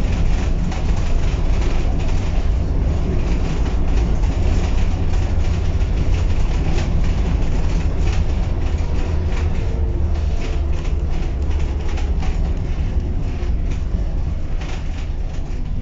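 Tatra KT4D articulated tram running along the track, heard from inside the passenger compartment: a steady low rumble from the wheels and running gear, with many irregular clicks and knocks.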